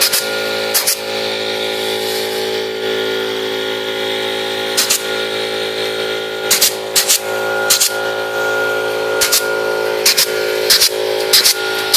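Pneumatic clip gun firing clips shut around the wires of welded mesh cage panels: a sharp clack with each shot, about a dozen in all, few at first and then in quick runs, over a steady hum.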